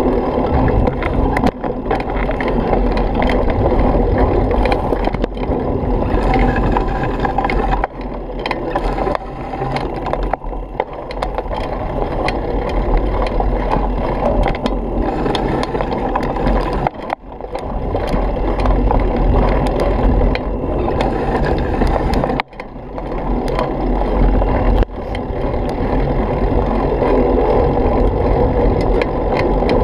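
Bicycle ridden fast over a rough dirt trail: a steady, loud rumble of tyres and wind noise on the mount, with constant rattling and clicking from the bike over the bumps. The noise drops out briefly twice, near the middle and about two-thirds of the way through.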